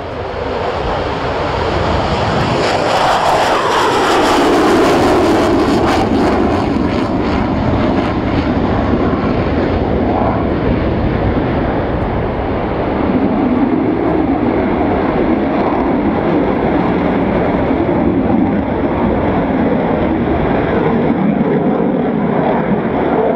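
F/A-18C Hornet's twin General Electric F404 turbofans at high power as the jet takes off and flies past: a loud jet roar that swells over the first few seconds, peaking about four to five seconds in with its pitch sweeping down as it passes, then carrying on as a steady roar.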